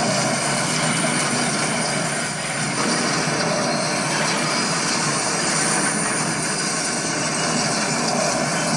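Long crash sound effect continuing as a steady, dense roar of noise, with no separate hits standing out.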